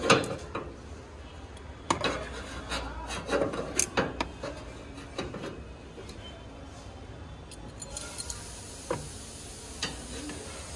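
A thin metal strip scraping and rubbing inside an air conditioner outdoor unit's fan shroud, raking out packed debris that had jammed the fan. The strokes come in irregular scrapes with sharp clicks, busiest in the first half and sparser after about six seconds.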